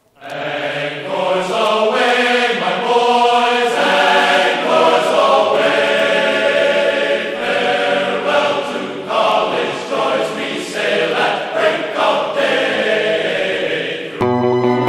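Background music of choral singing, several voices chanting, that starts abruptly and switches suddenly to a different music track about 14 seconds in.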